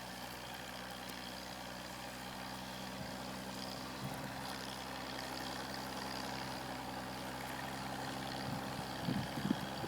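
A vehicle engine idling steadily, with a few brief louder sounds near the end.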